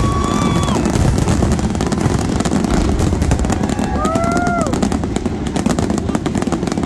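Fireworks finale barrage: many shells bursting at once and merging into a continuous heavy rumble. Dense crackling thickens toward the end, with a few short whistling tones.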